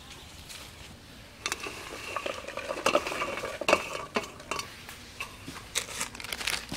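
An enamel plate scraping and clinking as red chillies are pushed off it into a wooden mortar, busiest from about a second and a half in to about four seconds, with scattered light clicks and rustles around it.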